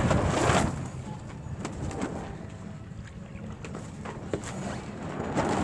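Rushing wind and water noise aboard a sailboat under sail, with a low buffeting rumble throughout. It swells louder just after the start and again near the end.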